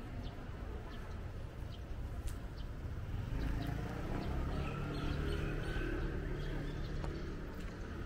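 Outdoor residential street ambience: a steady low rumble with a few faint, short high-pitched chirps scattered through it.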